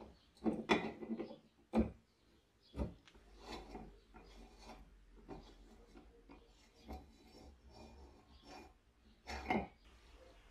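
Rusty pump cap of a vintage petrol blowtorch being unscrewed, first with tongue-and-groove pliers and then by hand. Irregular grating scrapes of corroded metal threads, with two sharp clicks a second apart and another strong scrape near the end.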